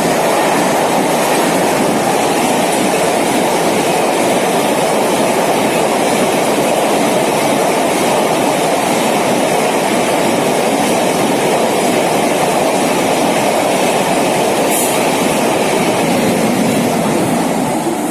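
Rajdhani Express coaches rushing past at speed without stopping: a loud, steady roar of wheels on rail, with no horn. The level starts to fall near the end.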